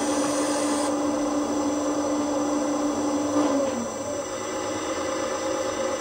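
Magom RC hydraulic excavator running, its Servonaut SMB sound module playing a steady simulated diesel engine sound through the model's speaker. The pitch of the engine sound shifts about three and a half seconds in.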